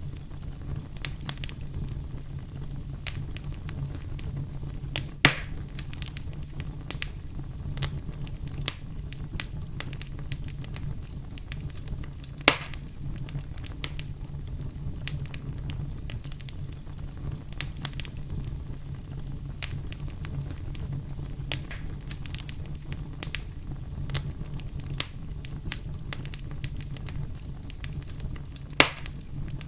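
Campfire crackling: scattered snaps and pops over a steady low rumble, with three louder pops about five seconds in, about twelve seconds in, and near the end.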